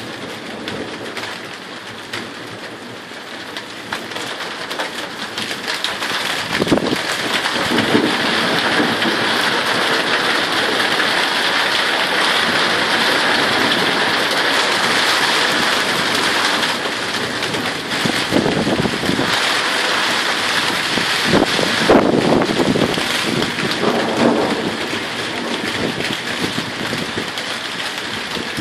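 Thunderstorm: steady rain falling, growing louder about five seconds in and easing off somewhat in the second half, with several rumbles of thunder.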